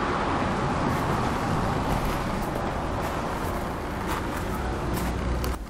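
Steady road traffic noise with a low rumble, dropping away sharply at the very end.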